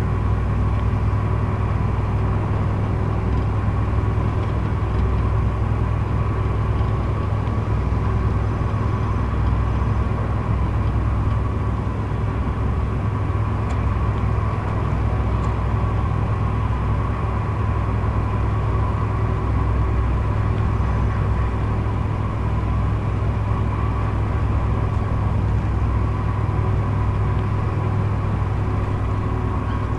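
Cabin noise inside a Scania K114 IB coach with a Lahti Eagle 560 body cruising at motorway speed: the rear-mounted 11-litre six-cylinder diesel's steady low drone mixed with road and tyre noise, with a thin steady tone above it.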